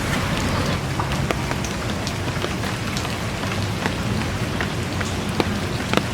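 Steady rain with scattered drops pattering, over a low rumble.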